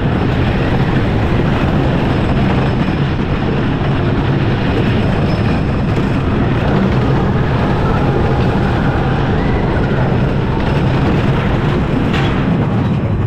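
Gravity Group Timberliner train of a wooden roller coaster running over the wooden track at speed, heard from the front seat: a loud, steady rumble and clatter of wheels on the rails.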